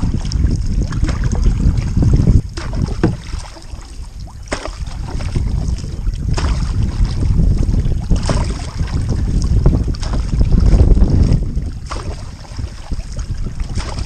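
Wind buffeting the microphone on a canoe crossing choppy water, a heavy uneven rumble, with water splashing against the canoe and paddle every couple of seconds.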